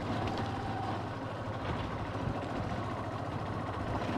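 Motorbike engine running at a steady speed while riding over a dirt track, a constant low hum with road noise.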